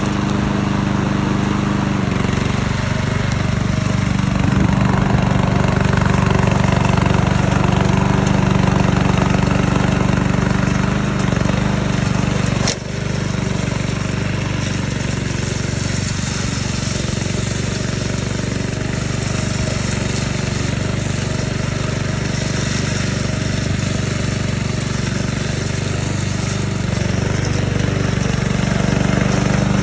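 Engine of a MUKESEN 800 remote-control lawn mower running steadily, with a sharp click and a brief drop in level about halfway through.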